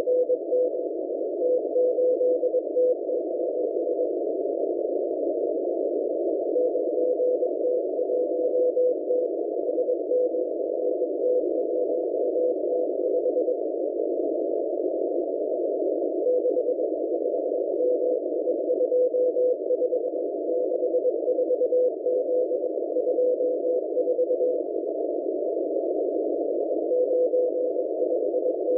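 M01 Morse code numbers station received on a shortwave radio through a narrow CW filter: a tone of about 500 Hz keyed in dots and dashes over a band of receiver hiss. The keying pauses for a few seconds three times.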